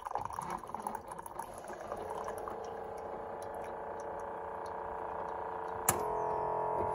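Coffee from a single-serve brewer pouring into a ceramic mug, splashing and dripping as the stream thins out, over a steady hum. A sharp click about six seconds in is followed by a louder, fuller steady tone.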